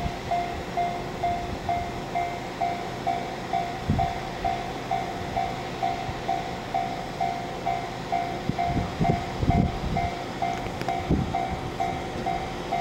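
Japanese level-crossing warning bell ringing in even, rapid dings, about three a second, as an EF210 electric locomotive hauling a container freight train approaches with a low rumble that swells now and then.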